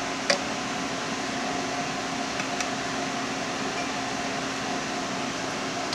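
Steady fan-like hum running throughout, with one sharp clink about a third of a second in and two faint light ticks a couple of seconds later, as a stainless-steel cup and glass bottle are handled.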